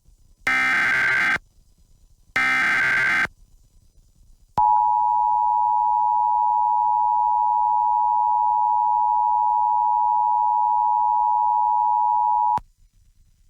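Emergency Alert System broadcast: two short screeching bursts of the SAME digital header data, then the EAS two-tone attention signal, a steady pair of tones near 900 Hz held for about eight seconds and cut off sharply. It marks the start of an emergency warning message.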